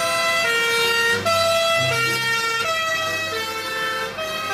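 Fire engine's two-tone siren of the German/Austrian kind, alternating steadily between a higher and a lower note about every 0.7 s. A low rumble runs underneath.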